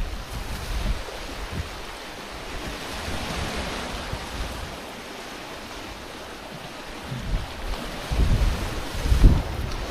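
Strong wind buffeting the microphone in gusts, with a steady rush of sea surf underneath. The heaviest gusts come at the start and again near the end.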